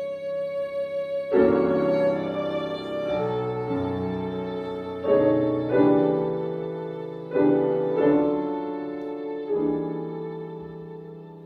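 Violin and concert grand piano playing slow classical chamber music: a violin note held with vibrato, then piano chords come in about a second in, several struck in quick pairs, each left to ring and fade, growing quieter toward the end.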